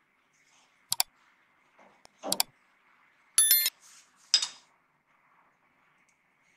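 Sound effects of a subscribe-button animation: computer mouse clicks about one and two seconds in, then a short bell-like notification chime, followed by one more click.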